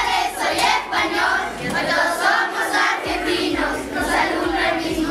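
A group of children singing and shouting together in chorus over background music with a steady beat.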